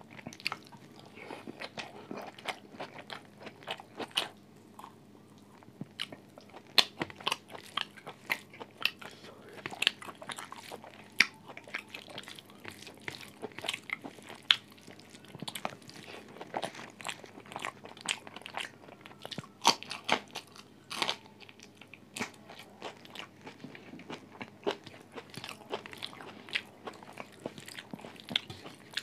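A person chewing, biting and crunching food close to the microphone: irregular sharp crunches and wet mouth clicks throughout.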